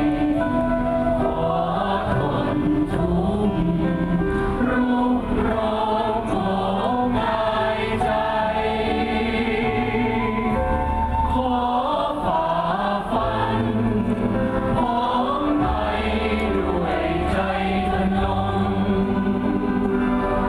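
A large mixed choir of men and women singing a slow song in held notes, with steady low accompaniment under it.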